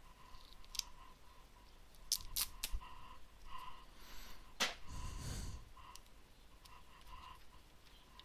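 Scattered small clicks and taps of tools and parts being handled on an electronics workbench, with a brief scuffing rustle about five seconds in.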